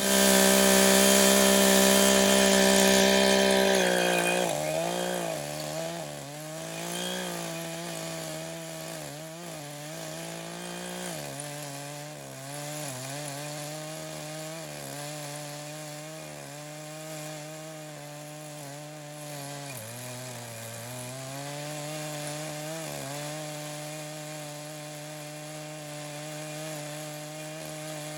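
Echo CS-590 chainsaw in a homemade chainsaw mill, running at full throttle and loud for about four seconds, then dropping in pitch and running on steadily with a wavering note as it rips through red oak.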